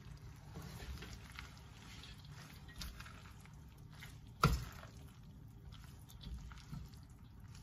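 Spatula stirring and folding rice in a steel wok, faint scraping and rustling with small ticks, and one sharp knock of the spatula against the wok about halfway through. The heat is off, so nothing is sizzling.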